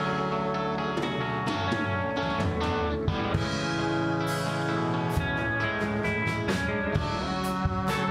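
Rock band playing live in an instrumental passage: electric guitars including a Gretsch hollow-body, bass and drum kit.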